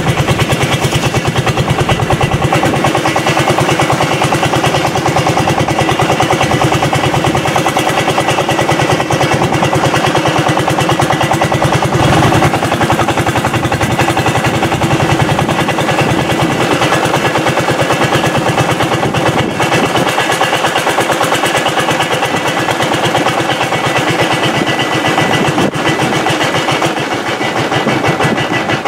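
Engine of a wooden long-tail boat running steadily under way, a loud, fast and even pulse of firing strokes.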